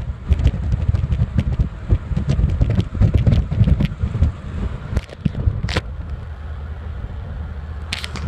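Wind buffeting the microphone over the road noise of a moving car: a gusty low rumble with a few sharp clicks, the loudest about two thirds of the way in.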